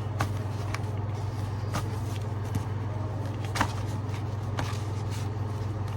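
A steady low hum, with a few light, separate taps and clicks spread through it, as a deck of tarot cards is handled and shuffled.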